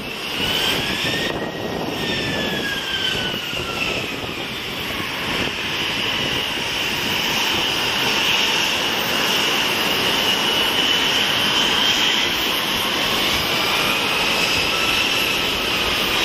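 Jet airliner turbofan engines at taxi power: a steady rush with high whines that slowly rise and fall in pitch.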